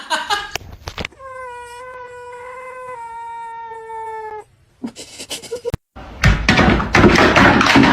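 A cat's long drawn-out meow, held for about three seconds with its pitch sinking slightly at the end. After a short gap, a loud rough noise starts about six seconds in and runs on.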